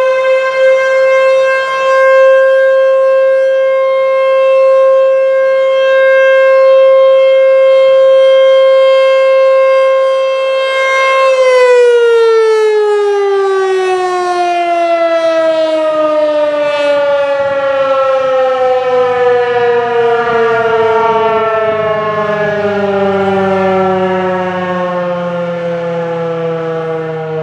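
American Signal T-128 outdoor warning siren sounding its fire signal: it holds a loud, steady tone, then about eleven seconds in begins to wind down, its pitch falling slowly and smoothly.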